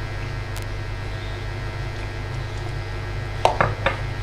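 Steady low hum. Over it, hands toss sliced potato and onion with gram flour in a plastic bowl, and a few short sharp knocks and squeaks come about three and a half seconds in.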